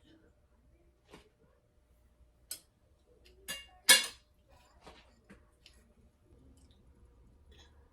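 Scattered light clinks and taps of kitchenware, about eight separate strikes, the loudest a sharp clink about four seconds in.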